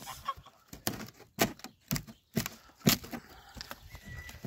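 Sharp knocks and cracks of rotten timber jetty planks, about five of them roughly half a second apart.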